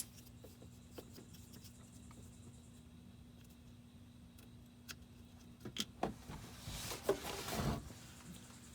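Hands handling a removed car turn signal bulb and socket: a sharp click at the start, a few faint ticks, then rustling and scraping for about two seconds near the end.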